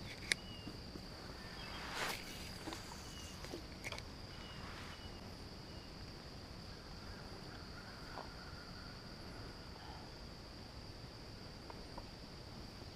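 Steady high-pitched drone of insects, with a few faint short chirps and soft clicks.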